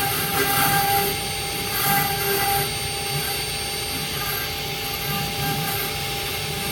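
Stone CNC router running: a steady machine noise with a few constant tones through it, swelling briefly near the start and again about two seconds in.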